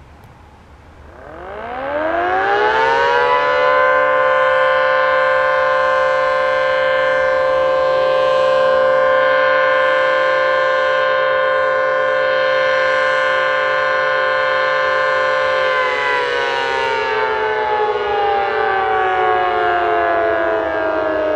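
Elektror L138 siren sounding a test signal. Its rising wail climbs to one steady tone, which holds for about thirteen seconds and then falls slowly in pitch as the siren winds down.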